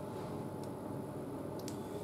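Steady low background hum with two faint small clicks about a second apart, as a nut and bolt are fitted by hand to a fender-riser bracket on a motorcycle's front fork.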